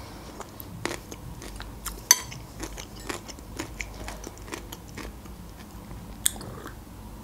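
Close-miked mouth sounds of eating broccoli cream soup: soft smacks and small clicks while chewing and swallowing. About two seconds in, a sharp clink as a metal spoon is set down against the ceramic bowl.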